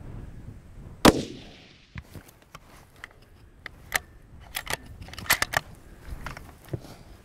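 A single hunting-rifle shot about a second in, sharp and loud with a short fading tail, fired at a pronghorn buck. Scattered sharp clicks and knocks follow over low wind rumble.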